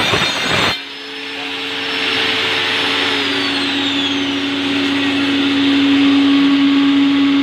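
Electric forge blower running, a steady motor hum with rushing air that grows louder over the first few seconds. A short stretch of rough, clattering noise cuts off abruptly under a second in.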